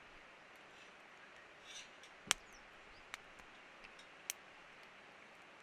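A few sharp light clicks and one louder knock about two seconds in, over a faint steady background hiss.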